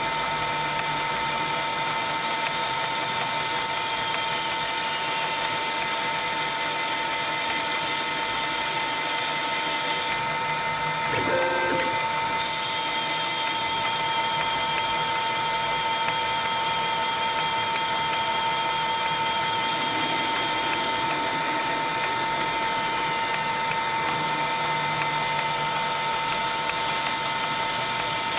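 CNC Myford ML7 lathe running: a steady mechanical whine with several held tones from its motors and drives. There is a brief change in pitch about 11 seconds in as the machine moves.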